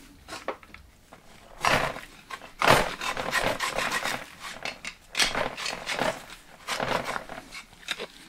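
Hard carbon soot from exhaust gas recirculation being scraped and chipped out of the ports of a Honda N22 2.2 diesel aluminium intake manifold with a screwdriver. From about a second and a half in come repeated, irregular gritty scraping strokes.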